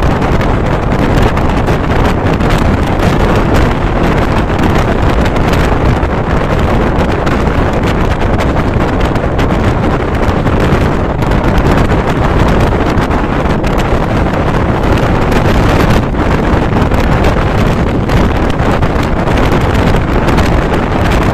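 Wind buffeting the microphone held out of a moving passenger train's window, over the steady running noise of the train along the track.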